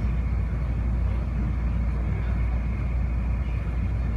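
Incheon Airport Maglev train running along its elevated guideway, heard inside the cabin as a steady low rumble and hum.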